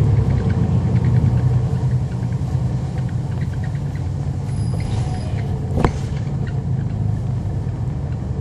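Cummins ISL9 diesel engine of a 2011 NABI 40-SFW transit bus heard from on board, a steady low rumble that eases slightly after about a second and a half. A brief high-pitched tone sounds a little before the middle, and a single sharp click follows about a second later.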